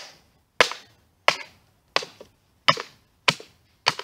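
Mallet repeatedly striking empty tin cans to flatten them: six sharp hits, about one every two-thirds of a second.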